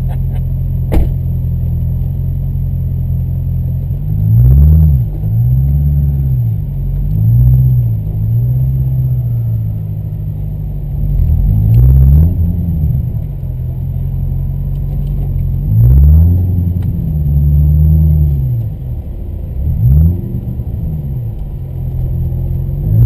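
C6 Corvette Z06's 7.0-litre LS7 V8 idling with a steady low rumble, its revs rising and falling briefly several times as the throttle is blipped or the car eases forward.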